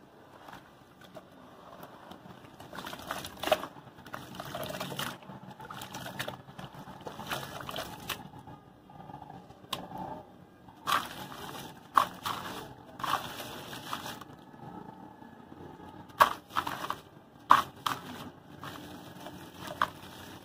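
Hands swishing and squeezing gritty wet cement in a tub of water. Crumbled cement pieces drop in, with several sharp crunchy snaps and splashes, the loudest near the middle and twice in the last few seconds.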